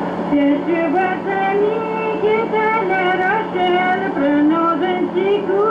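A woman singing a French folk song on an old recording from the late 1960s, her voice carrying a wavering melody over a steady low hum.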